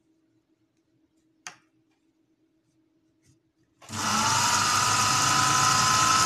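Electric sewing machine stitching a seam through heavy fabric. A single click comes first, then about four seconds in the motor starts: its whine rises briefly, then runs steadily at full speed.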